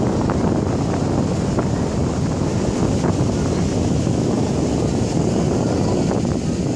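Steady wind noise buffeting the microphone, with the wash of breaking surf beneath it.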